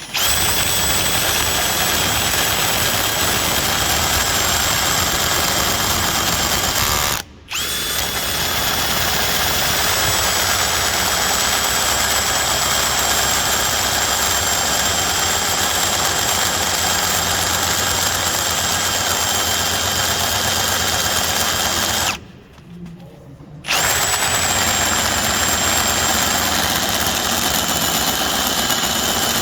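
Ryobi One+ HP PBLDD01 brushless cordless drill, in speed 1, running under load while driving a 13/16" bit, a steady motor hum with a high whine. It stops briefly about 7 s in and again for about a second and a half after 22 s, then starts up again each time.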